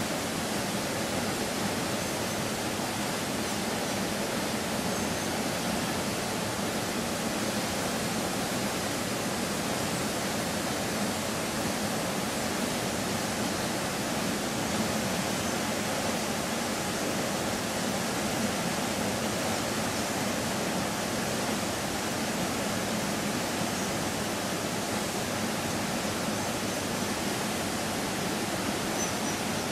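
The Rio Celeste waterfall plunging into its pool: a steady, unbroken rush of falling water.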